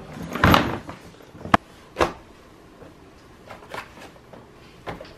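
A rolling suitcase being handled on a hardwood floor: a scuffing rustle as it is laid down and opened, two sharp knocks about a second and a half and two seconds in, then faint rustling of clothes being packed into it.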